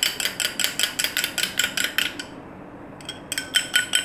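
A metal fork beating an egg, yogurt and oil batter in a glass bowl, clinking rapidly against the glass at about six strokes a second. The strokes stop for about a second after the halfway point, then start again.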